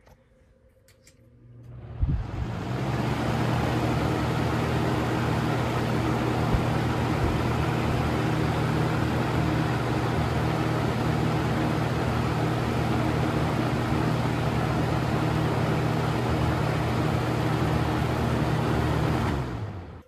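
Box fan powered by a 1.1 amp PSC Lasko Weather-Shield motor, switched on with a click about two seconds in. It spins up quickly and runs steadily at speed, a low motor hum under the rushing of air off the blades, then cuts off just before the end.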